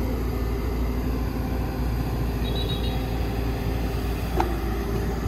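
Excavator's diesel engine running steadily under work, with a single metallic clank about four seconds in.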